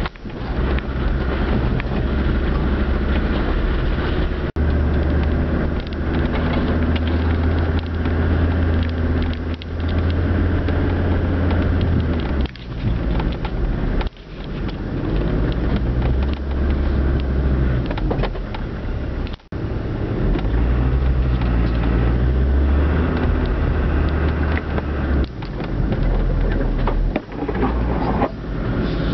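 Land Rover Discovery TD5's five-cylinder turbodiesel engine running at low speed over rough ground, its low drone rising and falling with the throttle and dropping briefly a few times, with knocks and rattles from the body and suspension.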